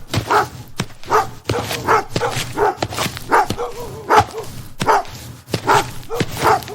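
Repeated barking: about a dozen short barks at an uneven pace.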